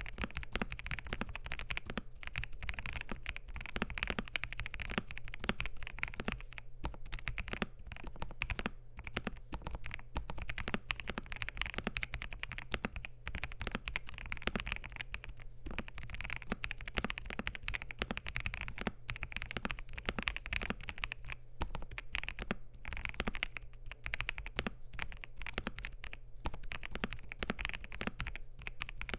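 Continuous typing on an Epomaker EK98 mechanical keyboard with lubed and filmed WS Morandi linear switches, a polycarbonate plate and ABS keycaps: a fast, unbroken run of key clicks, over a faint steady low hum.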